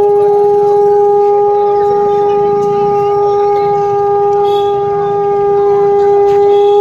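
Conch shell (shankh) blown in one long note, held steady in pitch throughout.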